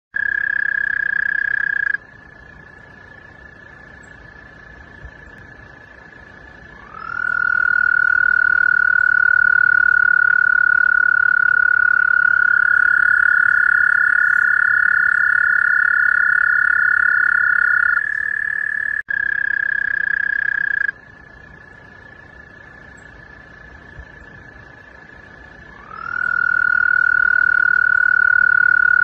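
Two American toads trilling: long, steady, high-pitched trills at two slightly different pitches that overlap and take turns, each held for many seconds. A lower trill starts about seven seconds in with a slight upward slide and again near the end, and a higher one joins it and carries on alone for a few seconds. A fainter trill continues in the gaps between the loud ones.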